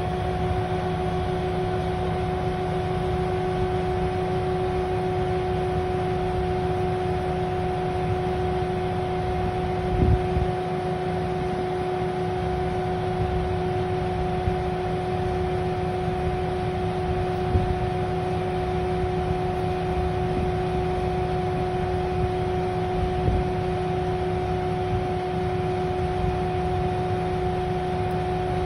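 Machinery running steadily on a stone-lifting job: a constant hum with a steady tone over a low rumble. A few brief knocks come through, the loudest about ten seconds in.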